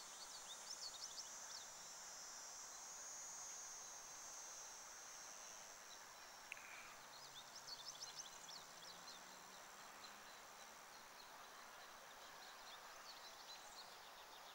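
Faint outdoor ambience with birds chirping: two short runs of quick high chirps, about half a second in and again around seven to nine seconds, over a faint steady high hiss.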